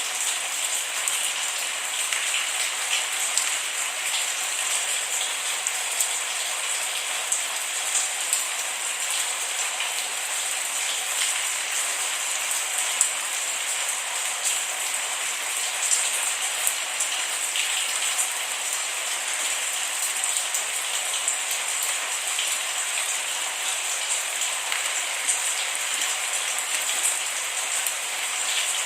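Steady rain falling, an even hiss peppered with many small sharp drop ticks, with no thunder.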